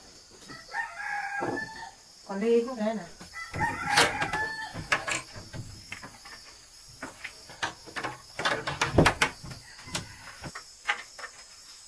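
A rooster crowing twice in the first few seconds. Then the clicks and knocks of a wooden wardrobe being handled and its doors shut, with a loud knock about nine seconds in.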